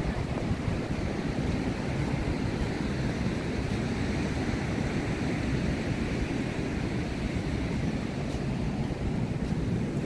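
Steady wash of ocean surf breaking on a sandy beach, mixed with wind rumbling on the microphone.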